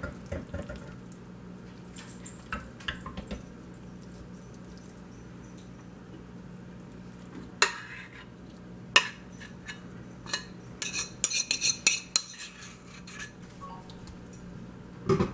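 Metal spoon clinking and scraping against a mixing bowl and a metal bundt pan as sticky biscuit pieces and apple pie filling are spooned out. Scattered single clinks, then a cluster of quick clinks and scrapes a little past the middle, over a faint steady hum.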